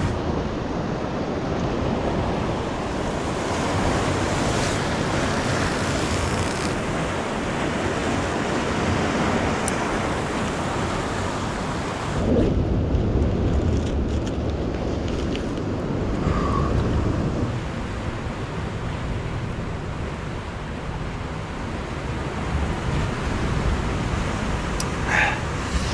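Ocean surf washing and breaking against rocks below, with wind rumbling on the microphone.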